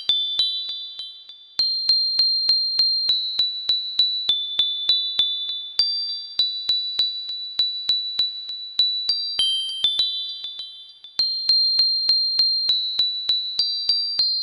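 Background music: a fast, high, bell-like tinkling melody of short struck notes, pausing briefly twice between phrases.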